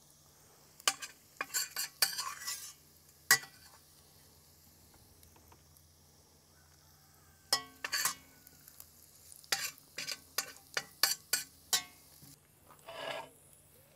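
Metal spoon scraping and clinking against a stainless steel frying pan in two short runs, scooping out butter-braised onions and herbs. A faint sizzle of hot butter runs underneath and stops near the end.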